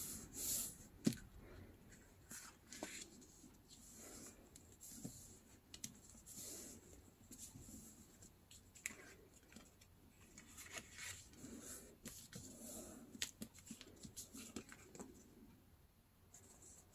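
Faint rustling and rubbing of newspaper as hands press and smooth glued layers flat, with a few light clicks and taps scattered through.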